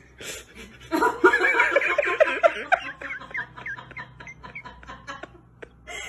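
A person giggling: a quick run of laughter starts about a second in and trails off into quieter chuckles.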